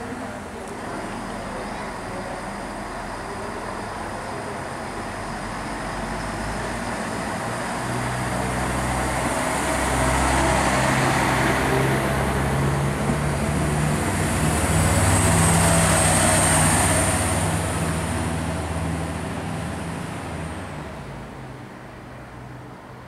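A Siemens Desiro diesel multiple unit pulls away and passes close by, its diesel engine running harder as it accelerates. It is loudest a little over halfway through, when a thin high whine joins in, and then fades as the train draws away.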